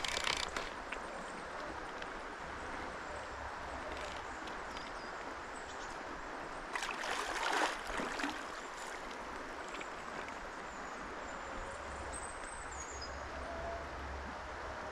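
Steady rush of a fast-flowing river, with a brief louder burst of noise about seven seconds in.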